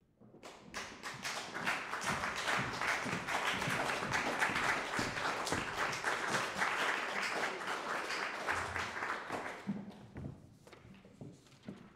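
Audience applauding: the clapping builds quickly, holds steady, and dies away about ten seconds in, leaving a few scattered claps and knocks.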